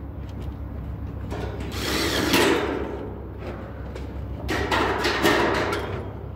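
Steel framing work: two short bouts of scraping, rattling metal with a few clicks, as light-gauge steel studs are handled and fitted into their track, over a steady low hum.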